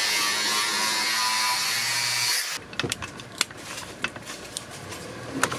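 Angle grinder with an abrasive disc running steadily as it grinds into a wooden block. It cuts off suddenly about two and a half seconds in, and scattered light clicks and knocks follow.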